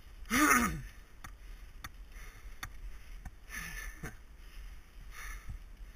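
Mountain bike ridden along rough forest singletrack: scattered sharp clicks and rattles from the bike. A short, loud voice-like call rises and falls about half a second in, and a few fainter ones follow around the middle.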